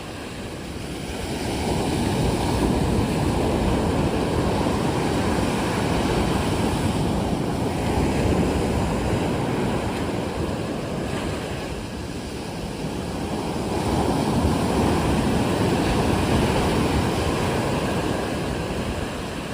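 Winter sea waves surging onto the shore in long, rushing swells: one swell builds and holds for several seconds, eases off about two-thirds of the way through, then a second swell rolls in.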